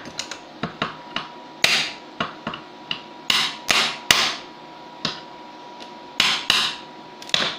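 Ingot mould being struck and knocked repeatedly to free a stuck solder ingot: a dozen or more sharp, irregular knocks, some light taps and some hard whacks, the loudest about four seconds in.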